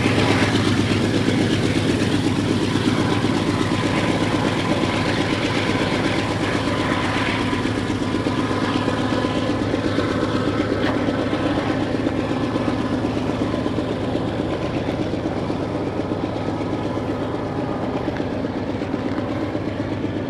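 GE AC4400CW locomotive's 16-cylinder FDL diesel engine running steadily as it pulls a freight train away, slowly fading.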